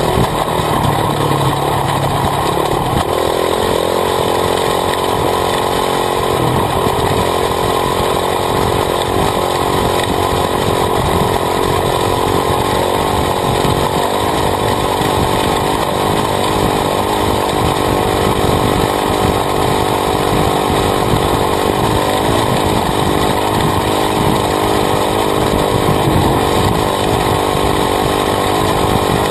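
Honda CRF450R dirt bike's single-cylinder four-stroke engine running hard under way, heard close up from the swingarm, with its pitch stepping a couple of times in the first seven seconds. The rear knobby tyre churns over loose gravel beneath it.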